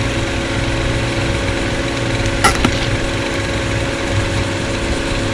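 A motor runs with a steady hum throughout, and a single short click or crack sounds about two and a half seconds in.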